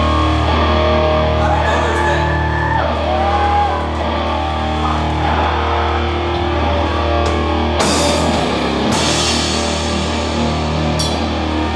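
Doom metal band playing live: a heavy sustained low drone of distorted guitar and bass under lead guitar notes that bend in pitch in the first half. Cymbal crashes come in about two-thirds of the way through and again near the end.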